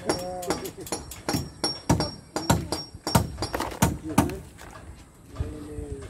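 Hammer knocking on wooden column formwork: a run of sharp blows about every half second to a second, easing off near the end, with voices in between.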